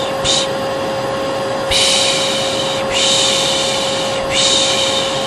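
Hair dryer running steadily with a constant hum, under a person's repeated 'piş piş' shushing: a short shush right at the start, then three long ones of about a second each. This is shushing and dryer white noise used to calm a colicky baby.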